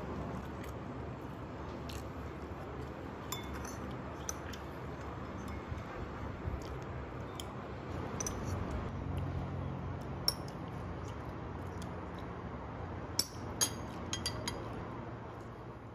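A metal spoon and chopsticks clinking against a ceramic bowl while eating. There are scattered light clinks, then a quick run of sharper clinks near the end as the last bits are scraped up, over steady background noise.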